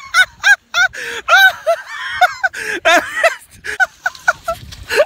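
Rapid, high-pitched human laughter: a run of short squealing bursts, several a second, with brief pauses between runs.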